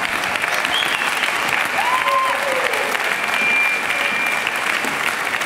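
Theatre audience applauding steadily during the curtain call.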